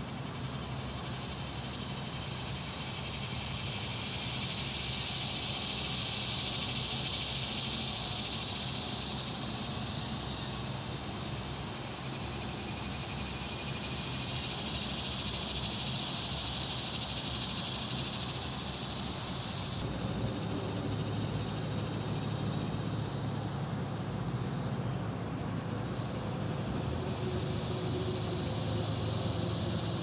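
Riverside morning ambience: a steady low hum under a high hiss that swells and fades twice. About two-thirds of the way through the low hum gets stronger and the high hiss thins.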